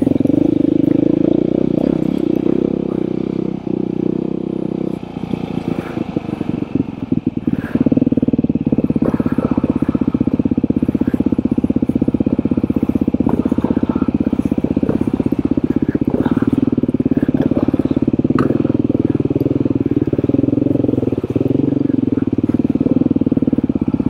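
Beta dirt bike's single-cylinder engine running under load on a trail. The throttle eases and the engine note drops and stutters from about four to eight seconds in, then it pulls steadily again, with a few sharp knocks now and then.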